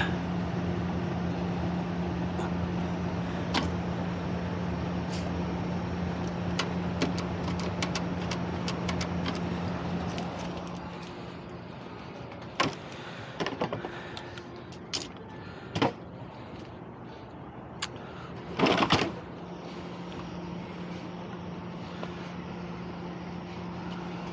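A steady machine hum that drops away for several seconds midway and then returns, with a run of sharp knocks and clatters from handled equipment during the quieter stretch, the loudest just before the hum comes back.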